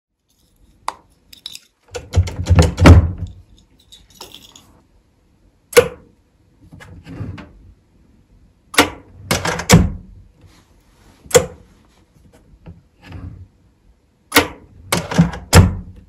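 A wooden drawer with an electronic latch being opened and pushed shut: a series of sharp clicks and knocks in several separate clusters, the loudest, with a heavy low thud, about two to three seconds in.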